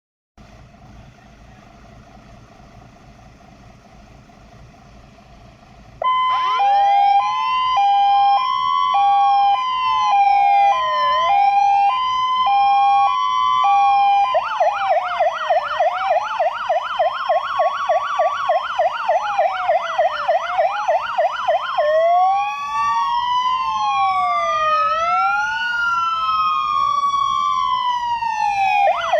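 Fire engine sirens sounding together after a faint steady hum: about six seconds in they start loud, a two-tone hi-lo alternating against slow rising and falling wails. Partway through they switch to a rapid yelp, about four sweeps a second, under the wails, then to overlapping wails, and the yelp returns near the end.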